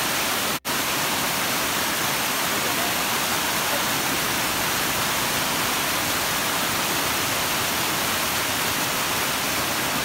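Steady rushing of a small waterfall cascading over rocks, cutting out for an instant about half a second in.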